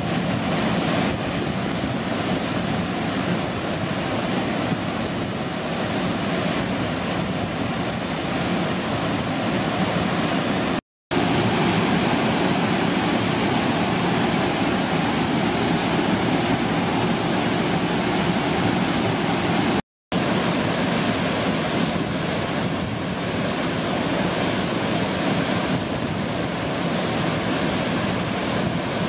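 Roaring River Falls running high after a snowy winter, its water pouring into a granite pool and rushing over boulders in a steady, loud rush. It cuts out briefly twice, at the changes of shot.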